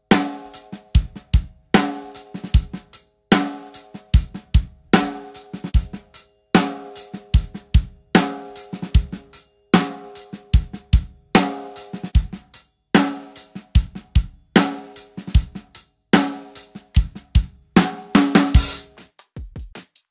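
Drum kit groove with kick drum, hi-hat and cymbals, while Evans single-ply coated snare heads (G1, UV1, Calftone) are played in turn; the main snare strikes ring on with open overtones about every one and a half seconds. Near the end a fast fill packs the strikes together.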